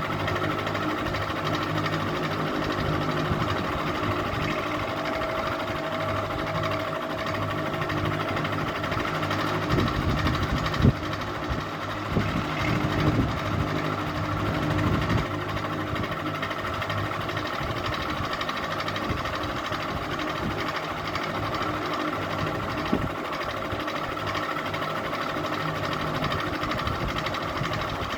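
Ceiling fan running with a steady motor hum. Around the middle there are several seconds of louder low rumbling with a sharp knock.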